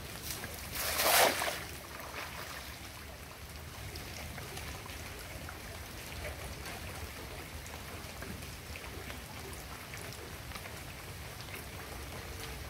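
A cast net slaps down onto floodwater about a second in, a short loud splash. After it comes a steady wash of water noise while the net is drawn back in.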